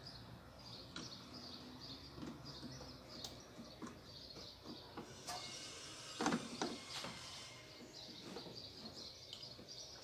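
Small clicks and knocks of parts being handled as the washing machine's transmission actuator is fitted, with a louder knock about six seconds in. Birds chirp steadily in the background.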